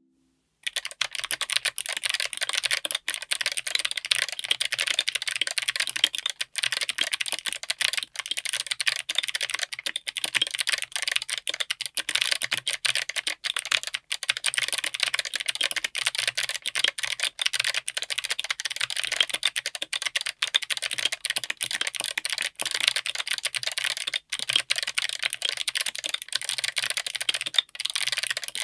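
Fast, continuous typing on a mechanical keyboard: dense rapid key clicks that start about half a second in and run without pause.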